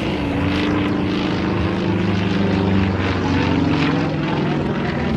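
Yak-50's nine-cylinder Vedeneyev M-14 air-cooled radial engine and propeller droning steadily as the aerobatic plane dives.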